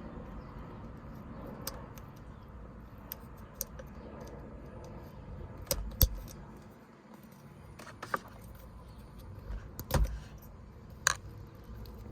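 Scattered clicks and knocks of hand work on a BMW E46 steering wheel as the airbag is unplugged and tools are handled, with the loudest knocks about six and ten seconds in.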